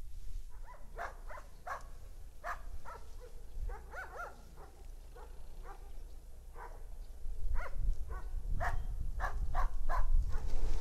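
A dog barking repeatedly in short, quick barks, over a low rumble that grows louder in the last few seconds.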